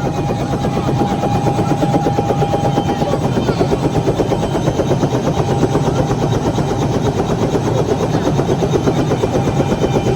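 Helicopter rotor beating in a rapid, even chop at close range, with a thin steady tone running over it.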